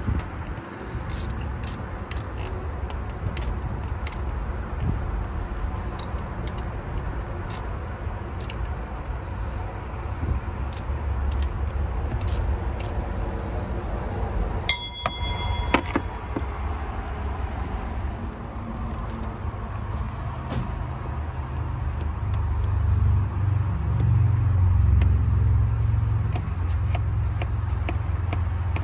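Hand ratchet clicking in short, irregular strokes on engine bolts, with small metal clinks and one sharp, ringing metal clang about halfway through. A steady low rumble runs underneath and swells near the end.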